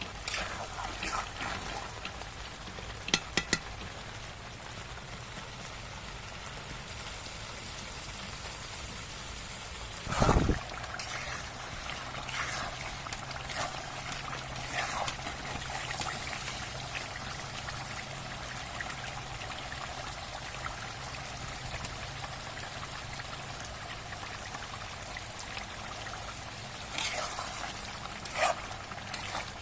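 Pork curry simmering in a pot: a steady wet bubbling and trickling. A few sharp clicks come about three seconds in, a loud knock about ten seconds in, and more clicks near the end.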